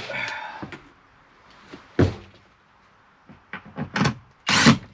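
Cordless drill-driver whirring briefly and winding down at the start, then a sharp click and a few knocks as plastic bus bar covers are handled and fitted. The loudest sound is a short rasping clatter near the end.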